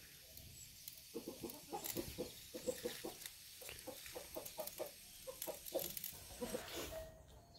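Chickens clucking in a quick series of short calls, several a second.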